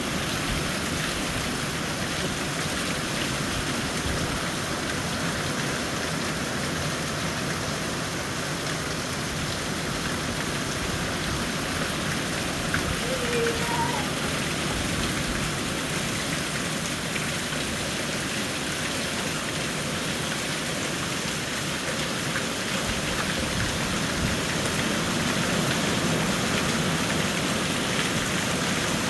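Steady rain falling and pattering on surfaces, an even hiss throughout, with a short faint chirp about halfway through.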